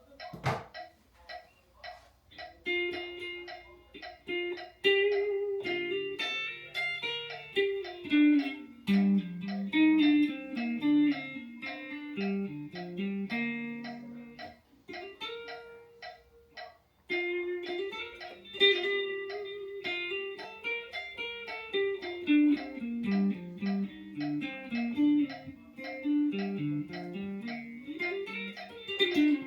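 Guitar played as a melodic line of single plucked notes, a passage being practised over and over.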